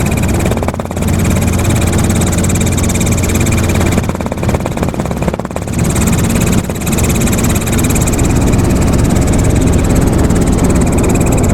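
Helicopter in flight: a steady, loud engine and rotor drone with high steady whines above it, dipping briefly a few times.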